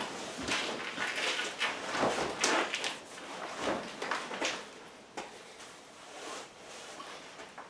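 Plastic vapor barrier sheeting (6 mil poly) crinkling and rustling in irregular handfuls as it is pulled and handled, busiest in the first few seconds and quieter after.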